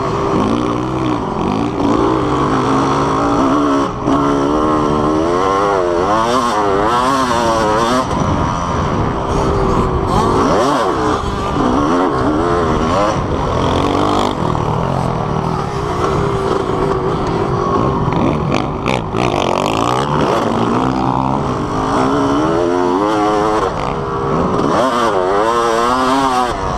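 Dirt bike engine, heard from on board, revving up and falling off again and again as it is ridden round a motocross track, with wind noise over it.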